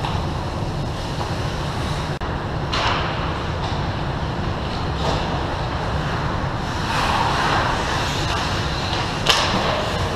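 Ice rink sounds during a hockey game: a steady low rumble under several short hissing scrapes of skate blades on the ice. There is a single sharp click about nine seconds in.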